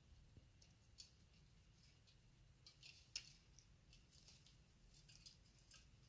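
Faint, quick splashes, flutters and clicks of a budgerigar bathing in a small plastic water cup. They come in scattered clusters, thickest around the middle, where the loudest click falls, and again near the end.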